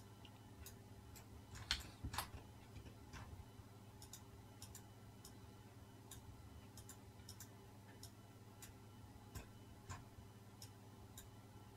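Faint, irregular clicking of a computer mouse and keyboard as a mesh is edited, over a low steady hum; a couple of louder clicks come about two seconds in.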